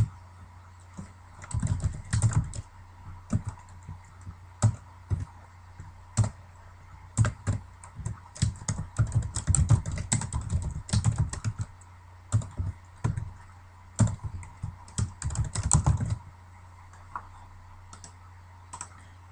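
Typing on a computer keyboard: irregular runs of keystrokes that stop a few seconds before the end, over a steady low hum.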